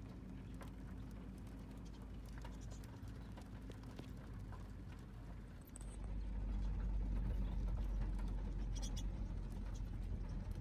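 Many wild budgerigars' claws tapping and scratching on the car's bonnet and windscreen, heard from inside the cabin, with a brief high chirp about nine seconds in. A steady low hum lies underneath and grows louder about halfway through.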